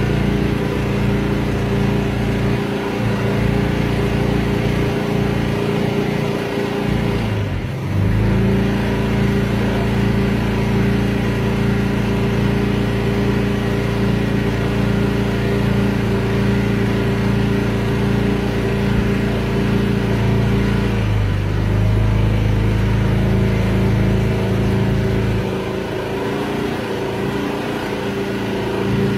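Motorboat engine running steadily, heard from on board. Its pitch dips and recovers about eight seconds in, then settles slightly lower about twenty-one seconds in.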